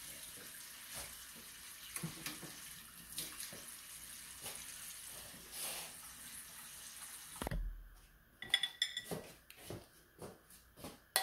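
Light clinks and knocks of dishes and utensils over a steady hiss. Past the middle the hiss cuts off and a quick run of sharp metal-spoon clicks and taps follows.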